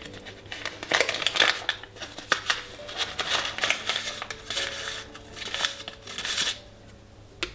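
Dry baking ingredients, coarsely chopped nuts, chocolate, flour and baking powder, being tipped and scraped into a mixing bowl, with a run of irregular scraping and rustling strokes. The strokes fade out about a second before the end.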